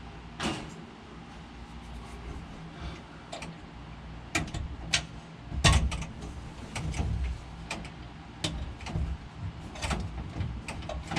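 Irregular sharp clicks and knocks, some with dull thuds, the loudest a bit past halfway: hands working the air shifter's air line and its fittings.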